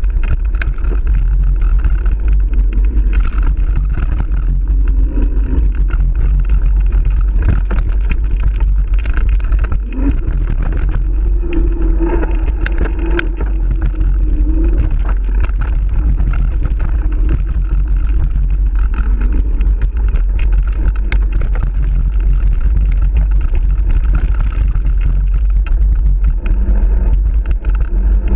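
Steady low wind rumble buffeting a mountain biker's action camera on a fast singletrack descent, mixed with frequent clicks and rattles from the bike over rough ground.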